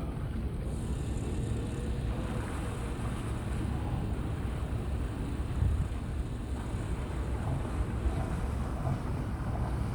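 Steady wind and sea noise with a low rumble, wind buffeting the microphone.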